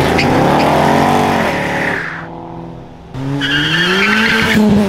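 Cars pulling away hard. One engine revs up and eases off, then about three seconds in another car launches with its tires squealing as its engine note climbs.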